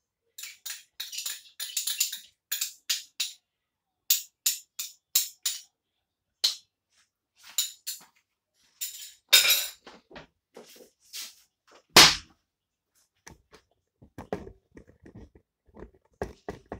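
A string of short clicks and taps of kitchen utensils being handled around a cooking pot, fairly regular for the first few seconds, with a louder knock about nine seconds in and a heavy thump about twelve seconds in, followed by scattered lighter knocks.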